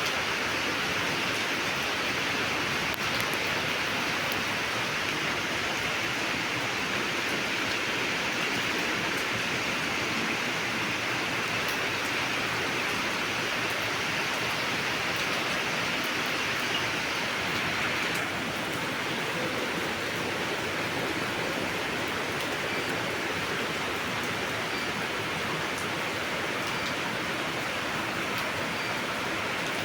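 Steady rain falling, an even hiss with no breaks, a little quieter a bit past halfway.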